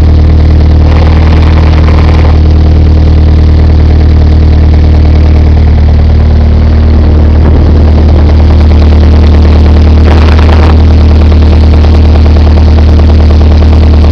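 Toyota 4A-GZE supercharged 1.6-litre four-cylinder engine idling steadily, with a knock that the owner suspects is a rod knock, loud with the clutch engaged and gone with the clutch pedal pressed. The engine note shifts slightly about seven seconds in, and there is a brief rougher, noisier sound about ten seconds in.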